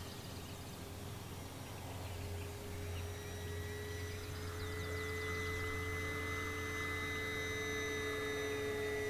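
Electric motor and propeller of an FMS 1500mm Cessna 182 RC model plane in flight: a steady whine, slowly growing louder as it flies.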